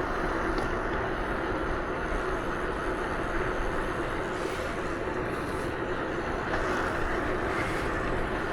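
Steady noise of a moving vehicle: an even engine hum under a rush of wind and road noise, with no change in speed.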